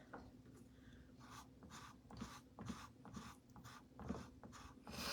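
Faint, repeated scraping strokes of chalk paste being spread across a stencil transfer, about two strokes a second.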